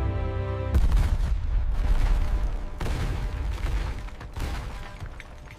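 A heavy boom less than a second in, then a long crashing rumble of stone masonry collapsing and rubble tumbling down, with fresh surges twice more, dying away near the end.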